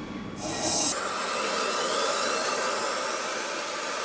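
Rebuilt turbocharger cartridge spun up by air on a high-speed balancing machine on its first run. A loud rush of air starts suddenly about half a second in, with a faint whine climbing in pitch as the shaft gains speed.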